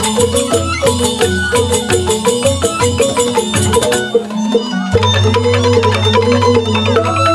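Balinese bamboo gamelan playing a tabuh petegak instrumental piece: bamboo xylophones struck with mallets in fast interlocking patterns, with kendang drums and suling flutes. About four seconds in the dense rhythm thins, and a low steady tone enters a second later.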